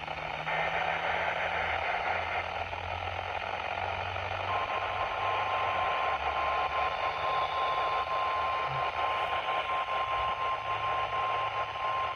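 Weather radio reception full of static hiss; about four and a half seconds in, the steady 1050 Hz NOAA Weather Radio warning alarm tone comes on and holds, sounding for a weekly test of the alarm.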